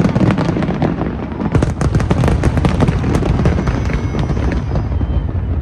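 Fireworks display: a dense run of bursts and crackles over a low rumbling of booms, busiest from about a second and a half to three seconds in, then thinning out.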